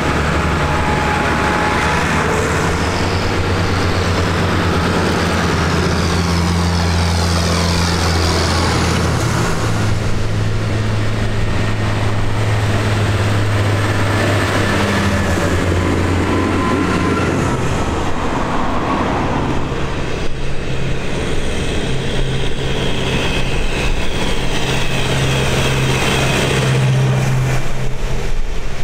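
Diesel farm tractors, New Holland among them, driving past one after another on a tarmac road: steady deep engine drone with tyre and road noise. The engine note thins out about two-thirds of the way through, then a fresh one builds and grows louder near the end as the next tractor approaches.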